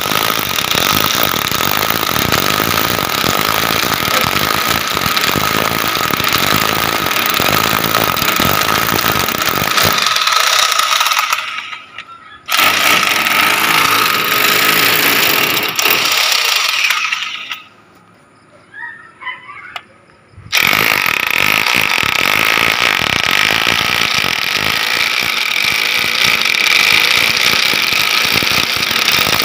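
Hammer drill boring under pressure, running in three long bursts, with a short pause about eleven seconds in and a longer one of about three seconds around seventeen seconds in.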